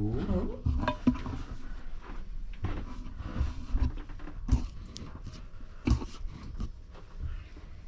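Irregular soft thumps and scuffs as a long-haired cat climbs and steps along wooden wall shelves, some of them carpeted, mixed with handling knocks from a handheld camera close by. The sharpest knocks come about a second in, about four and a half seconds in and about six seconds in.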